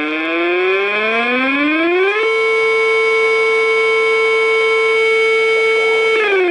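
Civil defense warning siren winding up, its rich multi-toned wail rising in pitch for about two seconds, holding a steady tone for about four seconds, then starting to wind down near the end.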